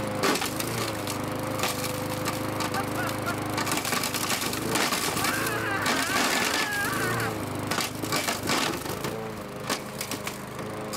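Gas-powered walk-behind lawnmower running while its spinning blade strikes rocks: a dense run of sharp cracks and clatters as the stones are hit and flung out from under the deck.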